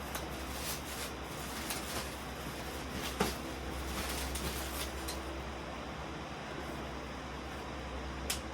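Scattered light clicks and knocks from the plastic parts of a vintage desk fan being handled during unboxing, the loudest about three seconds in, over a steady low background hum.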